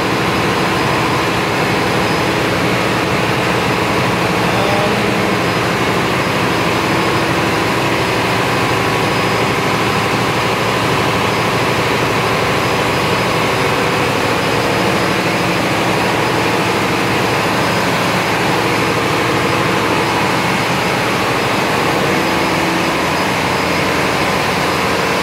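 Cummins QSM11 inline-six single-turbo diesel generator set running loudly and steadily at constant speed, with an even hum that does not change.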